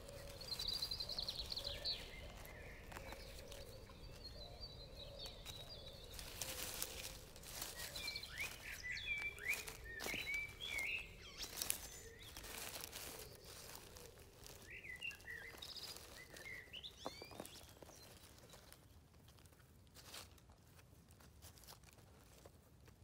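Dry leaves, pine needles and twigs rustling and crackling as a hand rummages through forest-floor litter, with small birds chirping now and then in the background.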